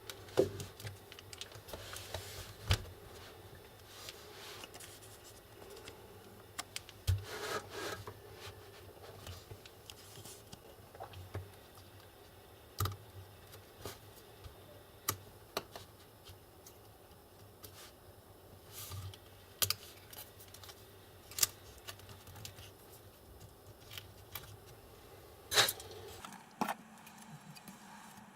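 Hands and small tools working on a laptop's plastic and metal parts: scattered sharp clicks and taps with light scraping between them, the loudest click near the end, over a faint low hum.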